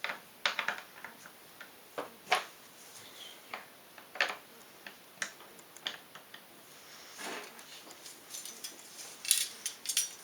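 Irregular clicks and taps of hard plastic and metal PC parts being handled, a sharp knock every second or so, then a quick run of lighter clinks near the end.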